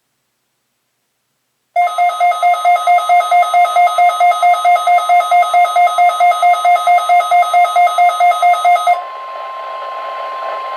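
Weather radio alerting: a loud pulsing electronic alarm tone, about four beeps a second, starts about two seconds in and cuts off abruptly. It is followed by the steady 1050 Hz NOAA Weather Radio alert tone over light static.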